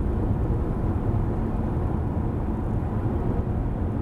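Steady low rumble of engine and road noise of a car driving at highway speed, heard from inside the cabin through a dashcam's microphone.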